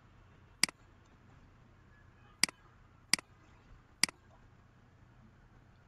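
Four sharp computer mouse clicks, unevenly spaced: one, then three close together about two seconds later.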